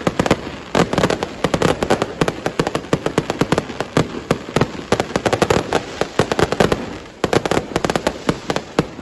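Fireworks and firecrackers going off in rapid, overlapping bangs and cracks, with a short lull about seven seconds in before the bangs pick up again.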